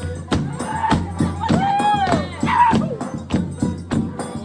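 Music with a steady beat and a voice singing a short line in the middle.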